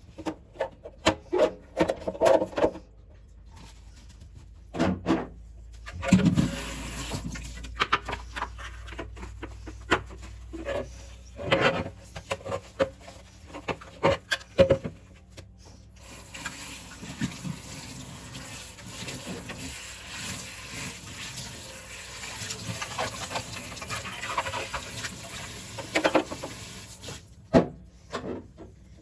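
Kitchen handling sounds while organising a fridge: containers and jars set down and moved, giving scattered clicks, knocks and rustles, with a steady hiss through the second half.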